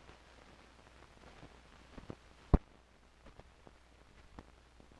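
Surface noise of a 16 mm film print's soundtrack running over blank run-out: scattered clicks and pops from dust and scratches on the film, over a steady low hum and faint hiss, with one loud pop about two and a half seconds in.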